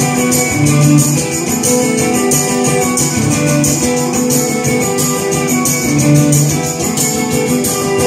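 Acoustic guitar strummed in a steady rhythm, chords changing every second or so, in an instrumental passage between sung lines of a song.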